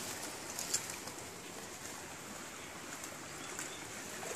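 Steady rushing of shallow stream water, with a few faint splashes from feet wading through it.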